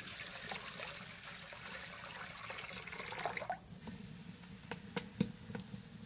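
Water pouring from a metal pot into an aluminium karahi, splashing and filling the pan for about three and a half seconds before it stops. A few light knocks follow.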